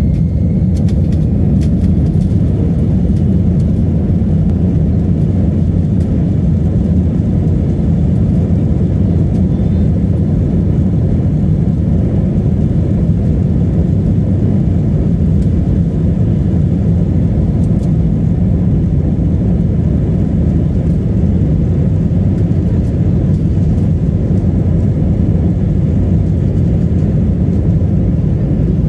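Jet airliner's engines and airframe heard from inside the passenger cabin as a steady low rumble while the aircraft taxis, holding an even level with no spool-up.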